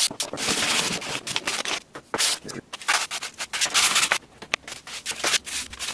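150-grit sandpaper rubbed by hand over a white 3D-printed PLA part in a run of short, uneven back-and-forth strokes: light sanding to smooth the print.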